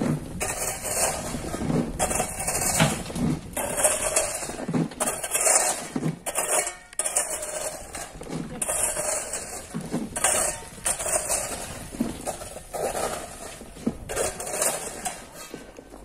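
Loose stones and gravel sliding and tumbling down a steep quarry rock face in repeated irregular rushes, clattering and clinking against the rock and each other.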